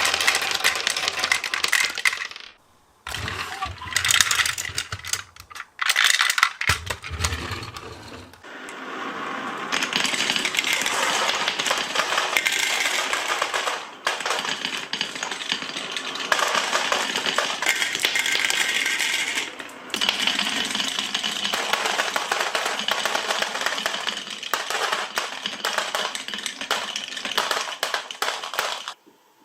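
Glass marbles rolling and clattering down marble-run tracks in a dense stream of rattling clicks. There is a low rolling rumble between about three and eight seconds in, and brief pauses near three and six seconds.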